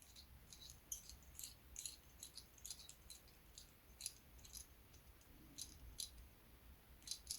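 Faint, irregular light clicks and ticks of tiny wooden rigging blocks being handled and drilled out by hand, with no motor running.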